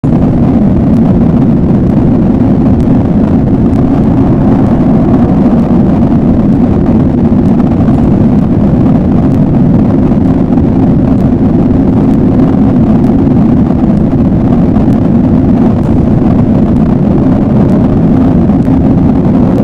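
A loud, steady low rumbling drone that holds unchanged throughout, with no breaks or swells: a dark ambient sound effect.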